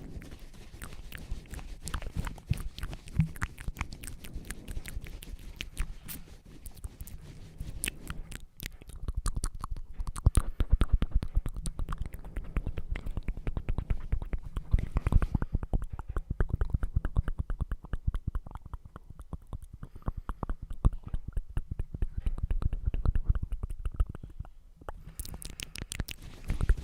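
Close-up ASMR mouth sounds right at the microphone: a rapid, continuous stream of wet clicks and smacks with a low rumble underneath, briefly pausing about eight seconds in.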